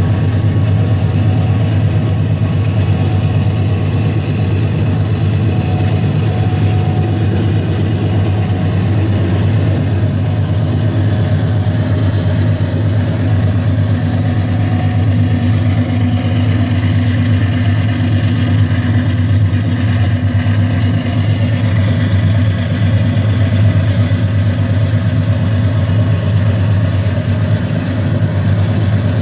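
Steady low drone of vehicles under way: a car driving at road speed alongside Union Pacific diesel freight locomotives working up a grade, their engine sound and road noise blended into one continuous rumble.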